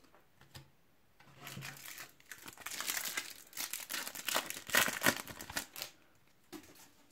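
Plastic wrapper of a Topps Match Attax trading-card pack crinkling as it is handled and torn open. It is a run of crackles that starts about a second in and stops about a second before the end.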